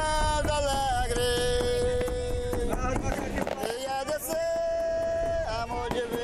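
Male singing of a slow devotional song, long drawn-out notes sliding from one pitch to the next, over a steady low rumble.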